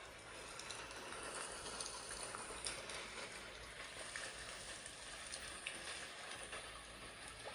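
Portable white noise machine playing its rain sound through its small speaker: a steady hiss with a faint scattered patter of drops.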